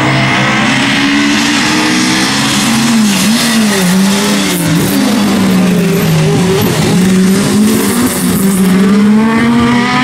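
Mk2 Ford Escort rally car's engine running loud and hard through a corner, its revs falling and rising again several times as the car brakes and accelerates.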